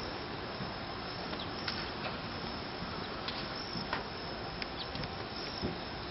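Steady outdoor hiss with a few scattered sharp clicks and snaps, the sound of a Marine drill platoon handling its rifles in formation.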